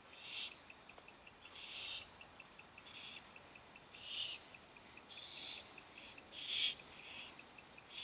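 Barn owl nestlings giving repeated harsh, hissing begging calls, each about half a second long and about one a second: hungry owlets calling for food.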